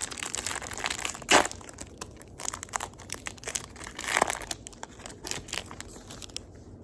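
Foil trading-card pack wrapper being torn open and crinkled by hand: a dense crackle with two louder crackles, about a second and a half in and near four seconds. It stops shortly before the end.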